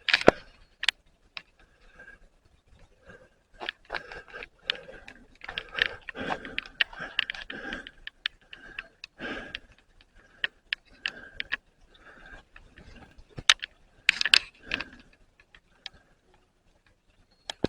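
Irregular small clicks, taps and scrapes of a small model building being handled and set in place, with a cluster of louder knocks near the end.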